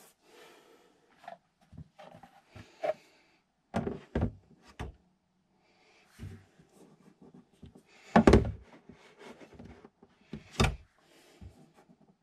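Hard plastic bag-holder dispenser handled against the wooden wall of a sink cabinet: scattered knocks and thunks, a few close together about four seconds in and the loudest near eight seconds, with light rubbing between.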